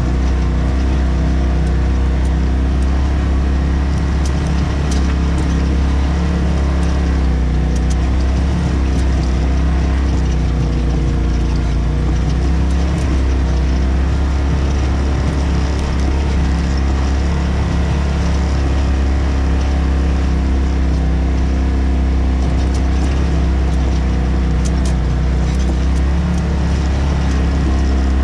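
Polaris RZR Turbo side-by-side's engine running steadily with only slight changes in pitch, a few faint clicks over it.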